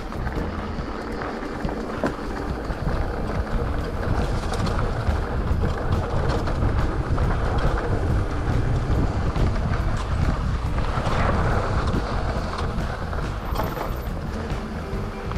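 Wind buffeting the microphone of a bicycle-mounted or worn camera while riding a trail, over a constant low rumble with scattered clicks and rattles from the bike and tyres on rough ground.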